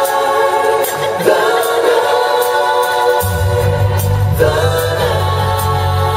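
Live band playing a song intro with held, sung harmonies over sustained chords and regular percussion hits; a bass line comes in about three seconds in.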